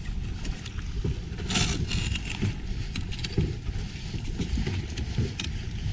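Wind buffeting the microphone over a choppy sea, with water slapping against a small fiberglass boat's hull and a brief splash about a second and a half in.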